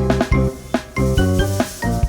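Background music with pitched notes over a steady pulsing beat.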